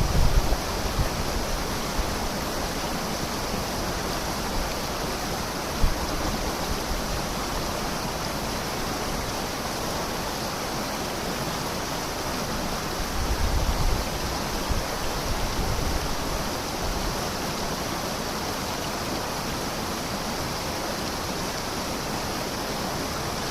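River running fast after a rainstorm: a steady, dense rush of flowing water, with a few brief low rumbles about a third of the way in and around the middle.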